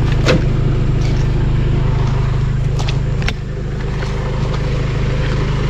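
Pickup truck engine idling steadily, with a few sharp clicks and knocks on top.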